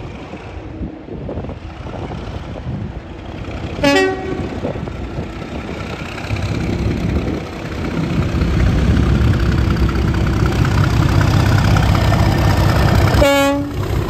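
A convoy of Class 37 diesel locomotives, with English Electric V12 engines, approaching and passing close by, their engine rumble getting much louder from about halfway through. A short horn blast sounds about four seconds in and another near the end.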